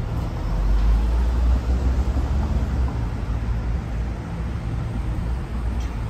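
Street traffic: cars passing with a steady low rumble that swells louder for the first couple of seconds.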